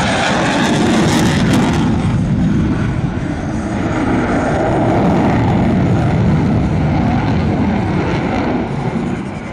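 Jet noise from a Lockheed Martin Block 40 F-16's General Electric F110 turbofan as the fighter flies by, a loud, steady rumble. Its hissing top end dulls about two seconds in.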